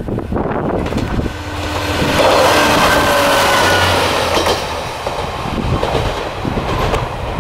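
Kanto Railway diesel railcar KiHa 2202 passing close by. Its engine and wheel noise rise to a peak with a high, slightly falling whine about two to four seconds in, then fade with wheels clacking over the rail joints as it moves away.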